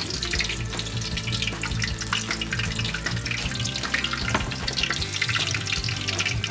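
Batter-coated oysters deep-frying in very hot oil in a wok: a dense, steady crackle and sizzle of bubbling oil.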